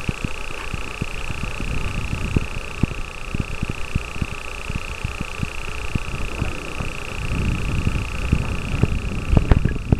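Wind buffeting a handheld camera's microphone in the open: irregular low rumbling and thumps over a steady high whine, heavier near the end.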